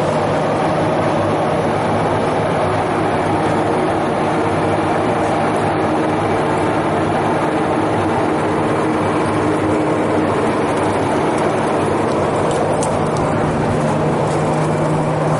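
Steady mechanical hum with a constant low drone over an even wash of noise.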